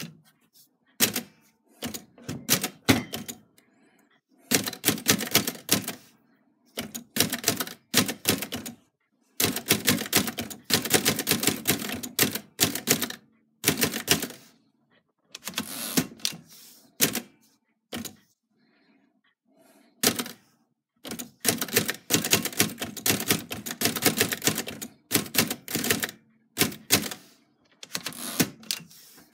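Typebar typewriter being typed on: runs of quick key strikes a second or more long, broken by short pauses, with a longer lull of about two seconds after the middle.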